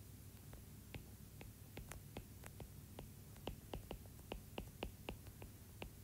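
Faint, irregular clicks and taps of a stylus on a tablet screen as handwriting is written, coming thicker about halfway through, over a low steady hum.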